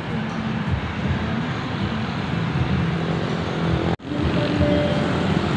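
Motorbike street traffic: small engines running steadily as motorbikes pass on the road. The sound cuts out for an instant about four seconds in.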